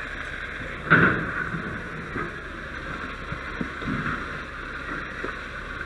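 Fire hose nozzle spraying water onto the smouldering, burnt remains of a shed, a steady rushing hiss, with one sharp knock about a second in.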